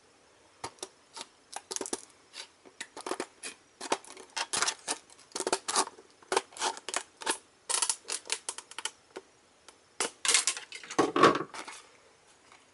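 Scissors cutting through a hard plastic blister pack: a long run of sharp, irregular snips and crackles. A denser, louder crackle of the stiff plastic comes near the end.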